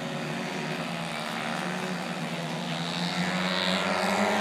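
Propeller engines of a group of radio-controlled model airplanes droning overhead together, a steady multi-engine drone growing slightly louder toward the end.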